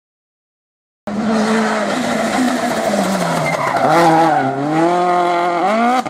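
Rally car engine passing at speed: the engine note starts abruptly about a second in, sinks as the car comes off the throttle, dips once more, then rises sharply near the end as it accelerates hard.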